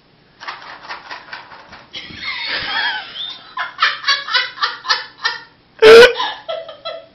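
People laughing hard in quick repeated bursts, with a sudden very loud outburst about six seconds in.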